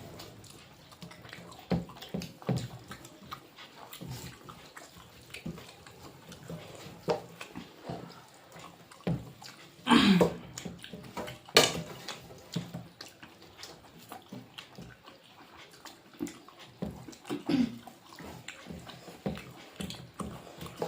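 Eating sounds: scattered small clicks, taps and wet squelches of food being mixed by hand and eaten from a plate. A few short falling vocal sounds come through, the loudest about ten seconds in.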